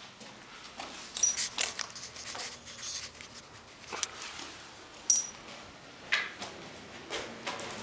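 Irregular scuffs and clicks of footsteps and shifting on a gritty concrete floor inside a small bunker room, with two short high squeaks about a second and five seconds in.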